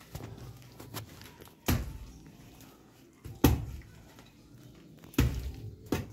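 A digging hoe chopping into soil, three heavy thuds about one and three-quarter seconds apart, with lighter knocks between them.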